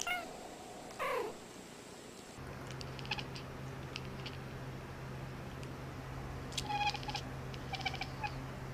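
A cat meows twice, each a short call falling in pitch. After that a steady low hum runs, with a few short, high-pitched cries a few seconds in and near the end.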